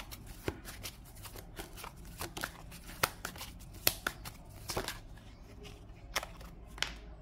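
A deck of oracle cards being shuffled and flicked through by hand: a run of irregular papery clicks and snaps as the card edges slip past each other, with a couple of sharper snaps about three and four seconds in.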